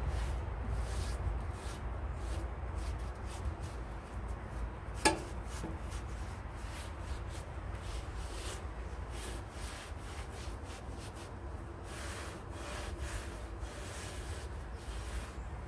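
Repeated rubbing strokes, about two to three a second, with one sharp click about five seconds in, over a steady low rumble.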